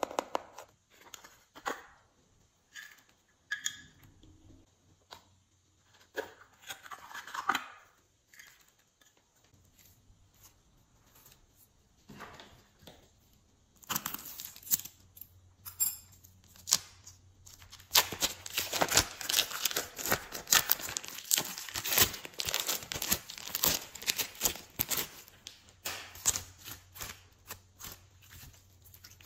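Small plastic containers being handled, with scattered clicks and taps, then scissors snipping open a plastic piping bag about fourteen seconds in. From about eighteen seconds on, glossy glitter slime is squished and stretched by hand with dense sticky clicking and popping.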